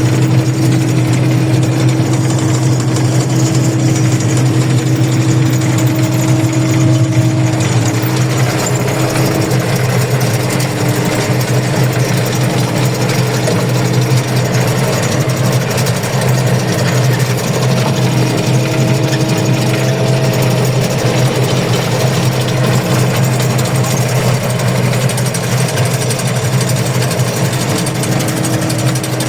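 Engine of milled-peat harvesting machinery running steadily at constant speed, a loud even low hum with a faint whine over it.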